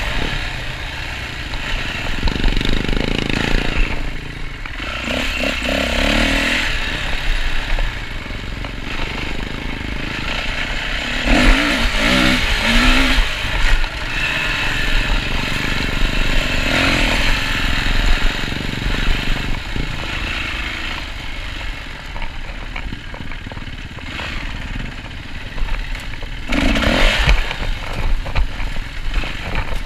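Yamaha dirt bike engine revving up and dropping back again and again as it is ridden along a rough trail, with a steady low rumble underneath.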